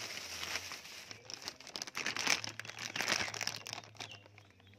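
Plastic crinkling and rustling as it is handled, in dense irregular crackles that die down about four seconds in.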